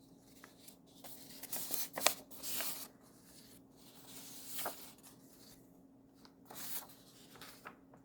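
Sheets of paper worksheets being handled and shuffled: a scatter of short rustling swishes, with a sharp tap about two seconds in.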